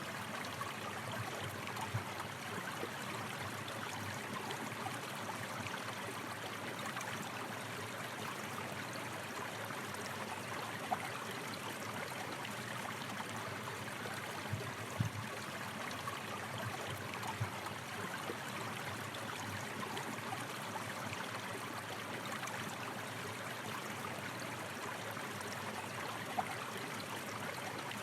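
Steady rushing of a flowing stream, an even wash of water noise, with a few brief louder gurgles or splashes scattered through it.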